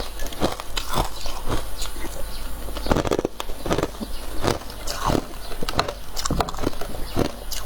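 Close-up crunching of soft, powdery freezer frost being bitten and chewed, in irregular crunches about twice a second.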